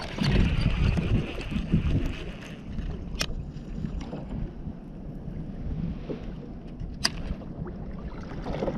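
Wind buffeting the microphone and water lapping against a plastic fishing kayak's hull, louder in the first couple of seconds. Two sharp clicks about four seconds apart.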